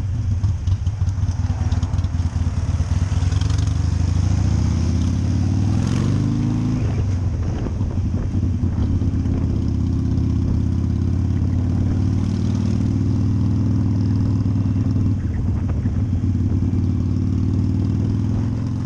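Harley-Davidson V-twin motorcycle engine running under way, heard from a helmet-mounted camera over a steady rush of wind noise. The engine revs up briefly about six seconds in and again near the end.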